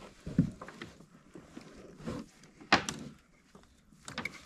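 Handling noise in a fishing kayak: a few short, sharp knocks and rustles as a caught bass is lifted and shifted in the hands, the loudest knock a little past halfway.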